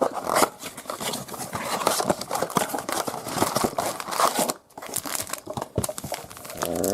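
Plastic wrap crinkling and tearing as a basketball trading-card blaster box is unwrapped and opened, with a dense run of small crackles and clicks and a short pause a little after halfway.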